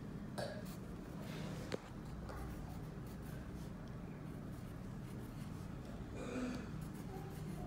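Pencil scratching softly on paper as words are written, with one sharp click about two seconds in, over a low steady hum.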